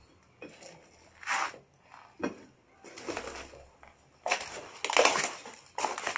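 Demolition rubble and broken tiles crunching and scraping in a string of irregular bursts, the loudest about five seconds in.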